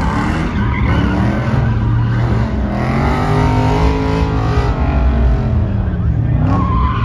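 A car doing a burnout: the engine revs hard while the tyres spin, its note climbing to a peak midway and then falling back.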